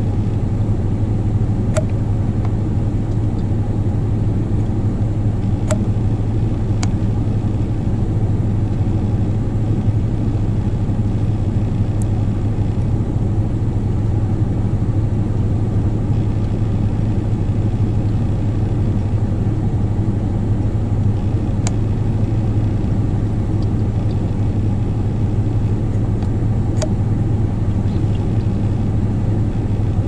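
Vehicle engine idling steadily, a low even hum, with a few sharp single clicks scattered through.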